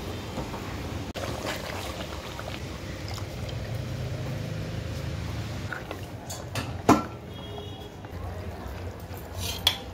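Broth being poured into a steel cooking pot of mutton curry and stirred with a wooden spatula: liquid pouring and sloshing. A sharp knock about seven seconds in and another near the end.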